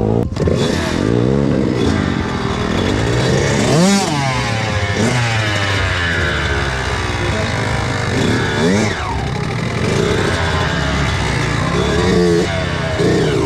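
Kawasaki KX85 two-stroke dirt bike engine revving up and down as it is ridden, its pitch rising and falling again and again, with a steep climb about four seconds in. A sharp click comes just after the start.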